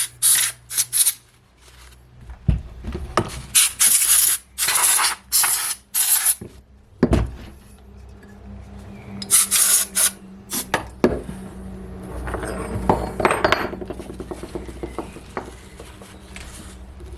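Chainsaw parts being cleaned and handled by hand: a series of short scrubbing or brushing strokes, with metal clinks and knocks of parts being set down. A steady low hum joins about seven seconds in.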